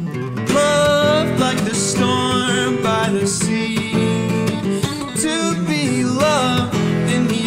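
Acoustic guitar strummed steadily, with a man singing over it in a few held, wavering notes.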